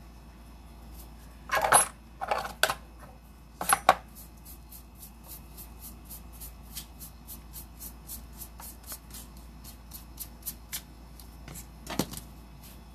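Small objects knocked and set down on a tabletop while dust is cleared off it: a few sharp knocks in the first four seconds and one more near the end, with a run of light, quick, regular clicks, about five a second, in between.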